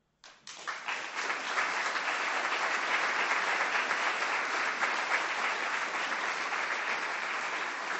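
Audience applauding: many people clapping at once, starting about half a second in and holding steady.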